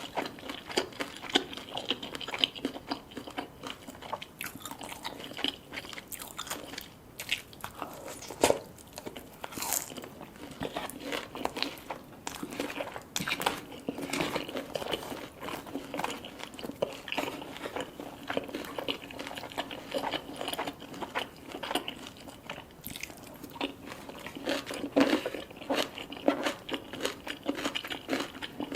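Close-miked eating: biting and chewing crunchy food, a dense run of crunches and clicks with an occasional louder bite.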